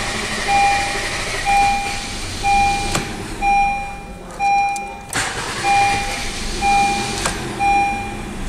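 Honda City's dashboard warning chime repeating about once a second, eight even tones, with a couple of sharp clicks between them.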